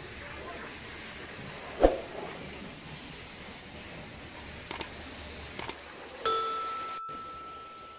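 Subscribe-banner sound effects: a soft thump, two quick double clicks, then a bright bell ding that rings on and slowly fades.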